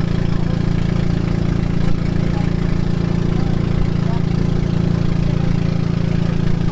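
Engine of a small motorized boat running steadily under way, a constant low hum with no change in speed.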